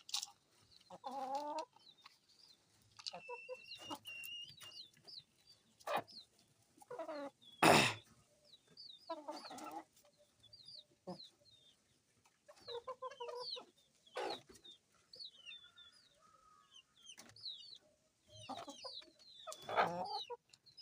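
A flock of chickens clucking and squawking at their feed, with many short high peeps from chicks. A sharp knock stands out about eight seconds in.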